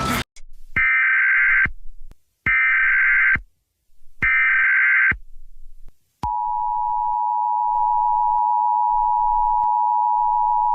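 Emergency Alert System tones: three short bursts of screechy digital data tone, each just under a second, then a steady, loud attention tone that holds for about five seconds.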